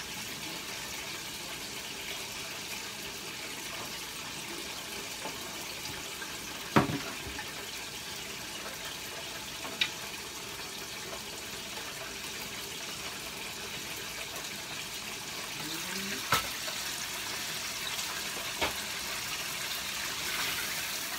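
Steady hiss of food cooking on the stove, with a few sharp knocks, the loudest about a third of the way in.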